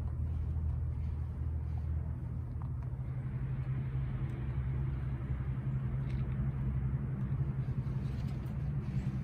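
A motor engine running with a steady low hum, its pitch shifting up about three seconds in.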